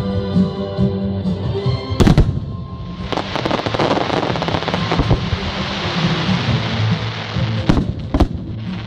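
Fireworks going off over music: a loud bang about two seconds in, then a few seconds of dense crackling, and two more sharp bangs near the end.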